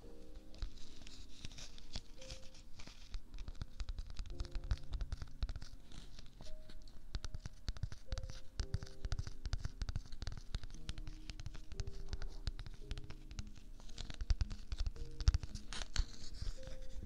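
A crinkly translucent plastic bag rubbed and crinkled against a binaural microphone's ear, giving a dense, close crackle and scratching. Soft music with slow-changing notes plays faintly underneath.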